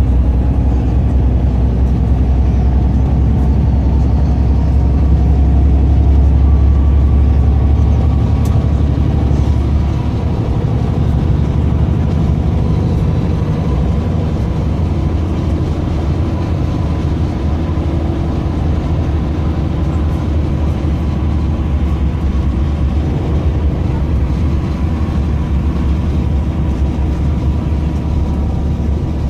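Moving city bus heard from inside the cabin: a steady low rumble of engine and road noise, a little louder in the first third, with a faint steady whine.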